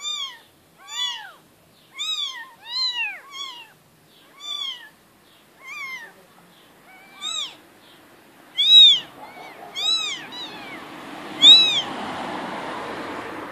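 Young kittens meowing over and over in short, high, arching cries, several calling at once at different pitches, with the loudest cries near the end. A steady noise rises underneath for the last few seconds.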